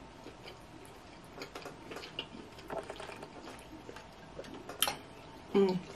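Soft close-up eating sounds: scattered small clicks and wet ticks from a plastic fork and wooden spoon in a glass bowl of ramen and from chewing, with a sharper click shortly before the end. A short hummed "mm" closes it.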